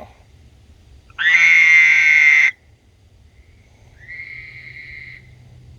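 Male frog calling: one loud, drawn-out call lasting over a second, high-pitched with a rasping edge, then a second, fainter and thinner call about two seconds later.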